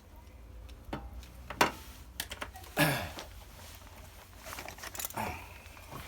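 Handling noise from working on a halogen oven's fan motor: scattered sharp clicks and taps with short rustles and scrapes. The loudest tap comes about a second and a half in.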